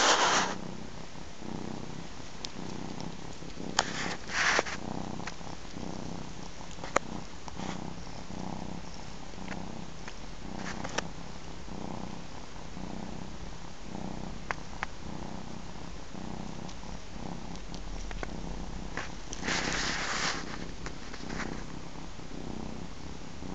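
Domestic cats purring steadily with a low rhythmic pulse while a ginger kitten nurses on its mother. A few brief rustling noises cut in, at the start, about four seconds in and near the end.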